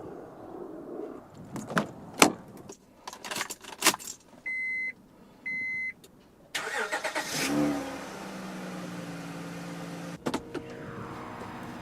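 A few clicks and knocks, then two short electronic chimes about a second apart. The Honda Pilot's V6 then cranks and catches about halfway through and settles into a steady idle.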